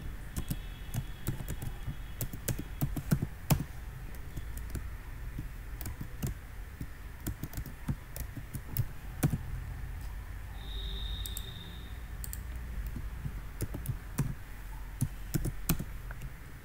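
Typing on a computer keyboard: irregular key clicks at an uneven pace, with short pauses between bursts of keystrokes.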